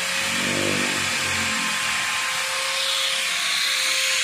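Electric drill running steadily, a constant motor whine over a hiss, while holes are drilled into the concrete wall.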